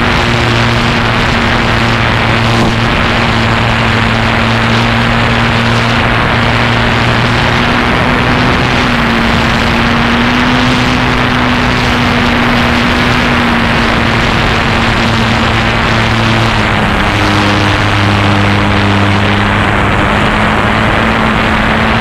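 Motor and propeller of a radio-controlled model airplane, close to the onboard camera: a loud, steady drone with a hum that shifts slightly in pitch a few times as the throttle changes, over rushing wind on the microphone.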